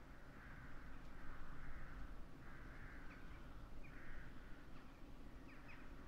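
Crows cawing repeatedly, a run of harsh caws about one a second, with a few faint higher chirps between them.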